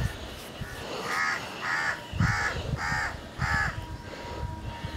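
A crow caws five times in an even series, about one call every 0.6 seconds, over low rubbing and knocking from a stone grinding slab as ground paste is scraped off it by hand.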